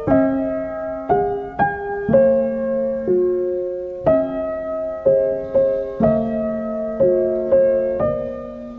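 Background music: a slow, gentle solo piano melody, single notes struck about once or twice a second and left to ring and fade.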